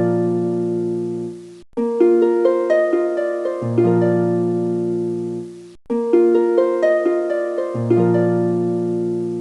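Background music: a plucked, harp-like melody over low held notes. The same short phrase repeats about every four seconds, breaking off briefly twice.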